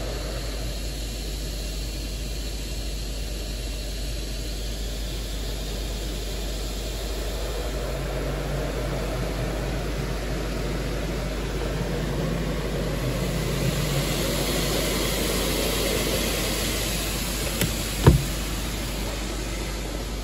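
Touch-free car wash's spot-free rinse spraying water onto the car, heard from inside the cabin as a steady hiss that swells in the middle as the spray passes over. A sharp knock comes near the end.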